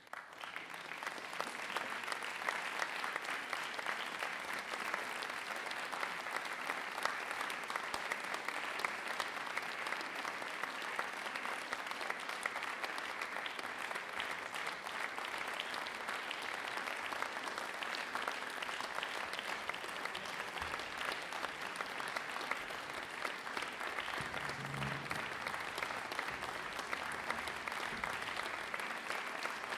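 Audience applauding: the clapping breaks out suddenly and keeps up at an even level.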